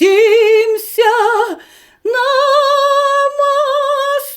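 A woman singing unaccompanied with a wide vibrato. Two short notes come first, then a long note held from about two seconds in, with quick breaths audible between the phrases.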